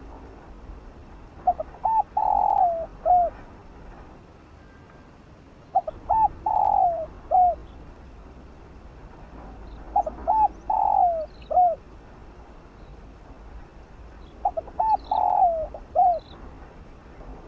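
Spotted dove cooing its territorial call: four phrases about four seconds apart, each a couple of short notes, a longer falling coo and a short closing note. This is the call used as a lure to rouse and train decoy doves. Faint high chirps of another small bird come in near the end.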